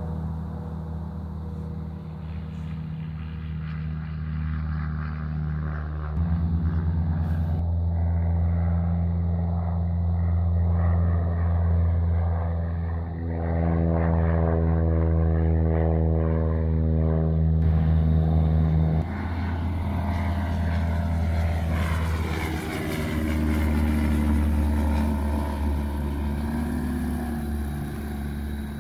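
Light single-engine propeller aircraft: the engine and propeller drone steadily as a plane flies low overhead. The drone changes abruptly a few times.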